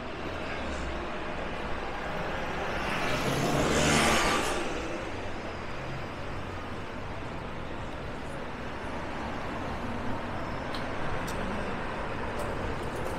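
Steady road traffic, with one vehicle passing close that swells and fades, loudest about four seconds in.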